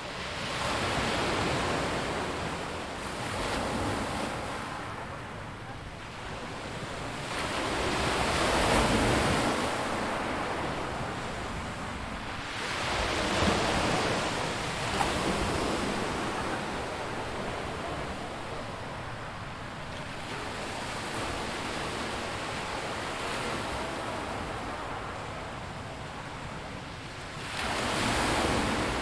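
Waves washing onto a rocky beach, breaking in surges every few seconds, the loudest at around 8 to 10 s and just before the end, with a couple of sharp clicks in between.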